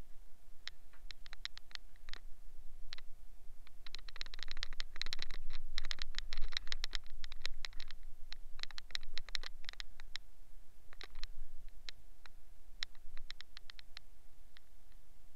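Irregular scratchy clicking and crackling close to the microphone, densest and loudest about four to eight seconds in, over a faint steady hum.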